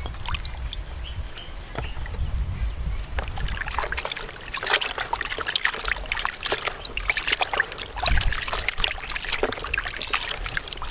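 Hands swishing and rubbing dried soup herbs and red dates in a plastic basin of water, with splashing, trickling and small clicks that grow busier from about four seconds in.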